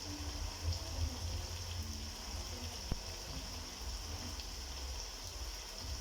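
Pot of onions, tomatoes and beef sizzling steadily on the stove, with a single knock about three seconds in.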